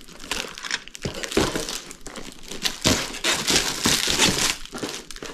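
Plastic model kit packaging being handled: irregular crinkling and rustling of plastic and cardboard, with a few light clicks, in several louder spells.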